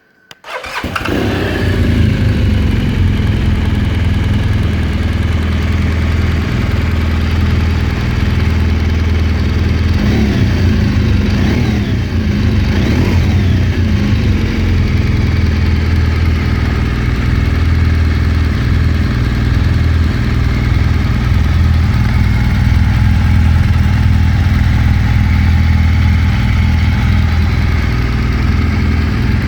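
A 2015 BMW R1200GS's boxer twin engine cranking and catching on the starter, then idling steadily. A few short rises and falls in pitch come near the middle.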